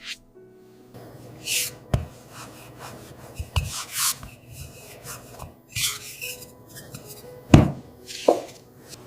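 Food-preparation handling sounds: a few sharp knocks with short scrapes and rustles in between, the loudest knock about three quarters of the way through.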